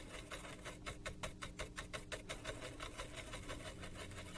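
Small brush scrubbing isopropyl alcohol over a circuit board's solder pads, in rapid back-and-forth strokes of about eight to ten a second.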